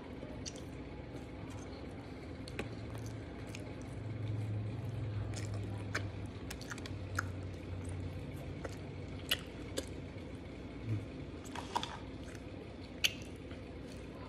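Close-up mouth sounds of a person chewing a bite of chicken sandwich: wet, squishy chewing with many short, sharp smacks and clicks scattered throughout, and a low hum partway through.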